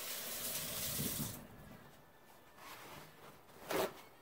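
Kitchen sink faucet running, shut off about a second and a half in. A brief loud swish comes near the end.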